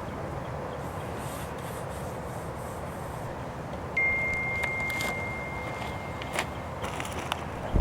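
Steady outdoor background noise with a single clean high tone held for about two seconds midway, then one sharp, loud report right at the end: a 20-gauge shotgun firing a patterning shot.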